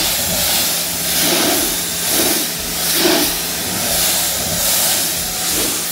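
Pressure washer spray hissing against a car door and spattering the floor, swelling and fading about once a second as the wand sweeps back and forth, with a steady low hum underneath.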